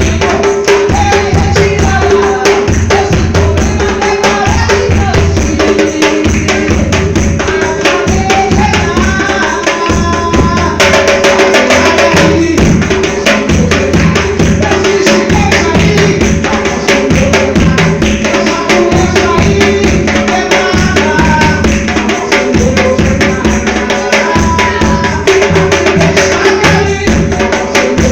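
Music played on timbal hand drums, with a marcação bass drum marking the beat, running continuously under a melodic line.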